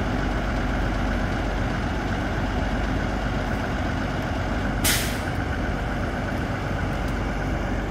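Heavy trucks' diesel engines running steadily at idle. About five seconds in comes one short, sharp hiss of released air.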